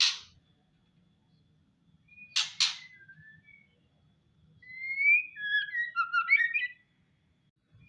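Female white-rumped shama (murai batu) giving its harsh rattling 'ketrek' call, two quick rasps about two and a half seconds in, between soft whistled notes. Near the middle comes a jumbled run of short whistles and chatter.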